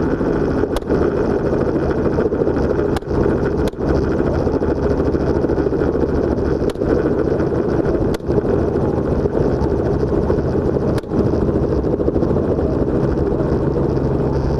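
Helicopter engine and rotor running steadily. Several brief sharp clicks with momentary drops in loudness cut through the drone.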